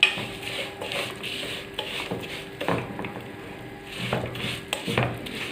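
Spoon stirring and scraping in a cooking pot holding ghee and oil, in repeated strokes about twice a second with light clicks of metal on the pot.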